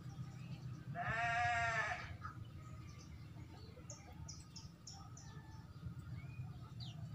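A single bleat-like animal call lasting about a second, starting about a second in, followed by a few faint, short high chirps.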